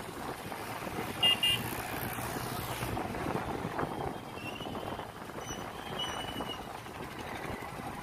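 Steady engine and road noise of a moving vehicle in town traffic. A vehicle horn beeps twice in quick succession about a second in, and fainter horn tones sound later.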